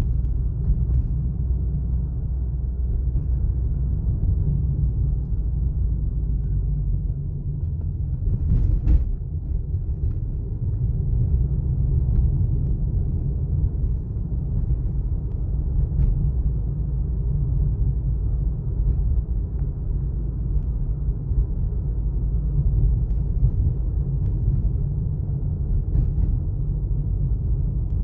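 A car on the move: a steady low rumble of engine and road noise, with a few faint clicks.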